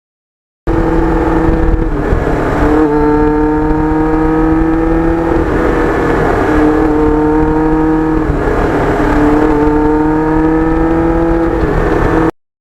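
Kawasaki Ninja GPX750R inline-four running through a Norton muffler under way. The engine note climbs slowly and drops sharply four times, about every three seconds. It starts abruptly about a second in and cuts off just before the end.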